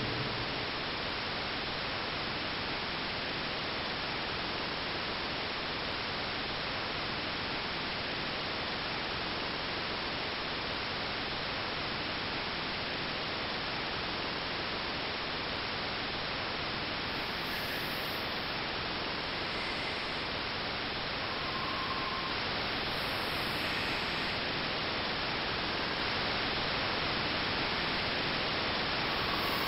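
Steady hiss of static, like white noise, growing slightly louder in the last third.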